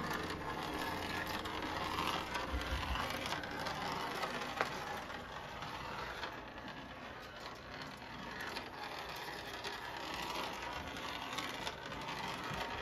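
Motorized snowman handcar running on three-rail model railway track: a steady whirring rattle of the small motor and wheels, with many small clicks.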